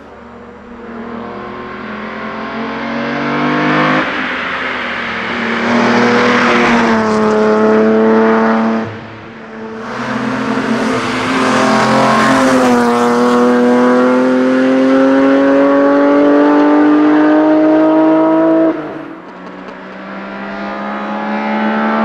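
A 3-litre BMW E30 hillclimb race car at full throttle, its engine note climbing hard. It lifts briefly about nine seconds in, climbs again long and loud, and cuts off sharply near the end.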